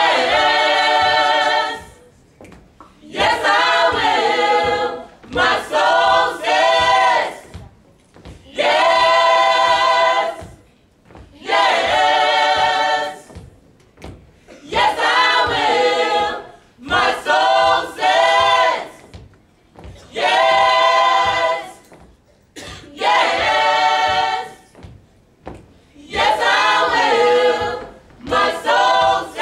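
Small mixed-voice gospel choir singing a cappella, in short phrases of a second or two with a brief pause after each.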